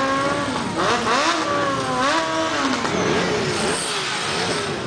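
Motorcycle engines revved up and down several times, the pitch rising and falling over and over, as a rider holds his bike at high revs in a tyre-smoking burnout.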